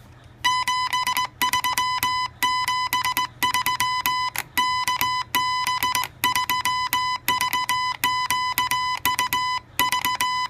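Kit-built Morse code practice oscillator sounding a buzzy, high tone, keyed on and off by hand in quick dots and dashes of Morse code, starting about half a second in.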